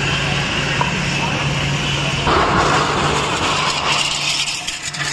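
An engine running steadily with a constant low hum, and a rushing hiss that swells for about two seconds in the middle, at a burning truck fire being fought with a hose.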